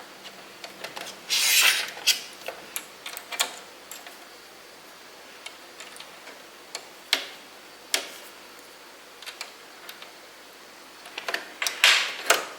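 Small clicks and taps of hands working at a sewing machine's needle area while a jersey needle is fitted, with a short rustle about a second and a half in.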